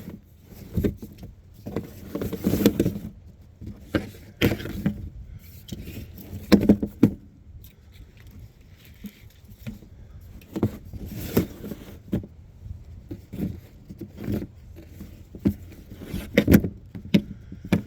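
Irregular knocks and clattering, some of them sharp, over a low rumble.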